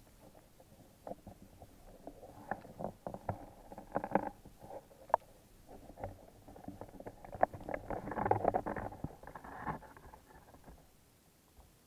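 Muffled water sloshing with irregular clicks and knocks, picked up by a camera held under water. The noise comes in two busier bursts, about four seconds in and again around eight seconds.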